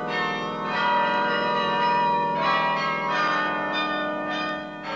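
Church bells ringing: a series of bell strikes every half second to second, each ringing on and overlapping the next.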